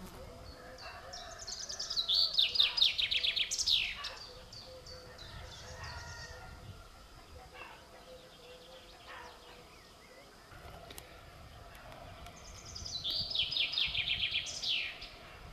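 A songbird singing two short phrases of quick high notes, each about two seconds long and ending in a falling sweep, with about ten seconds between them.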